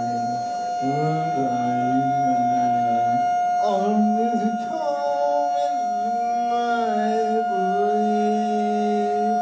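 Wordless vocal sung into a microphone: long held notes that slide and waver, howl-like, over a steady high droning tone.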